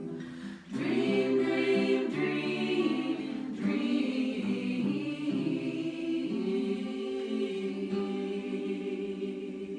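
A small vocal group singing in close harmony, a cappella, moving through several chords with short breaths between phrases, then holding one long final chord near the end.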